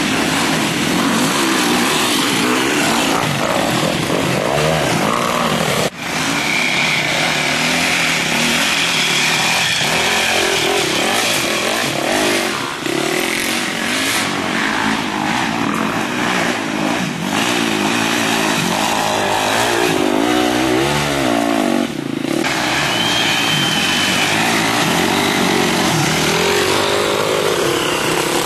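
Off-road dirt bike engines revving up and down on the throttle, more than one at a time. There is a sharp break about six seconds in.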